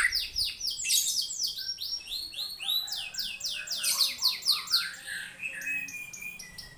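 White-rumped shama singing a fast, unbroken run of rapid repeated high sweeping notes, several a second, with a thin, steady, drawn-out whistle in the latter part.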